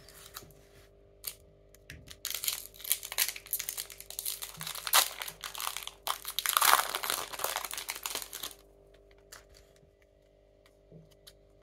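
Foil wrapper of a trading-card booster pack crinkling and tearing as it is ripped open by hand: a run of crackles for several seconds, loudest about two-thirds of the way through. A few faint clicks follow near the end as the cards are handled.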